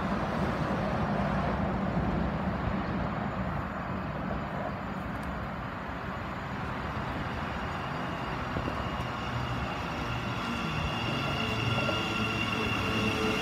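Thameslink Class 700 electric multiple unit arriving at the platform, its running noise growing louder as it nears. A whine of several steady tones comes in near the end as it slows to stop.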